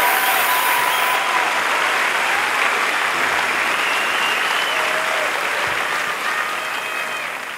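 Audience applauding after a performance, steady at first and slowly fading toward the end.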